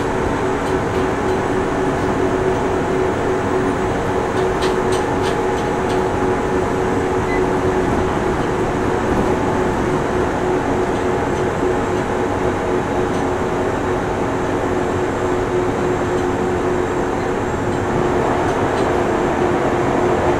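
Interior running noise of a chopper-controlled Nagoya Municipal Subway 3000 series train travelling between stations: a steady rumble of wheels on rail with several steady humming tones, and a few light clicks about four to six seconds in.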